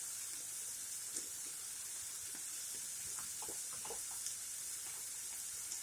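Onions sizzling steadily as they sauté in a pan, a soft even hiss, with a few faint light ticks in the middle.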